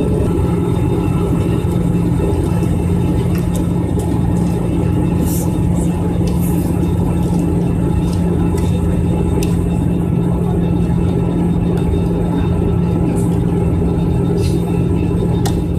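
Steady drone of a jet airliner's turbofan engines and airflow heard inside the passenger cabin: a constant low hum with a steady tone over an even rumble, with a few faint ticks here and there.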